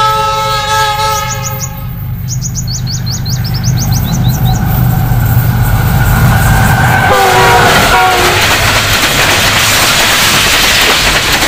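A Pakistan Railways diesel-electric locomotive's multi-tone air horn sounds for about two seconds as the express approaches. A second, shorter horn blast comes about seven seconds in. Engine rumble builds throughout, and the locomotive and passenger coaches rush past at speed in the second half, with birds chirping briefly early in the approach.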